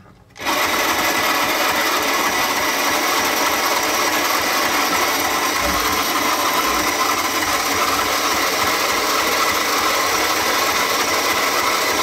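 Battery-powered electric motor of a 1968 Suzy Homemaker toy washing machine, switched on about half a second in and then running steadily as it drives the agitator through water and doll clothes.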